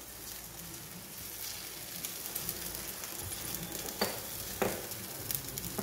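Spaghetti pancake batter sizzling on a hot cast-iron tawa as it is spread out. Two short clicks come about four seconds in.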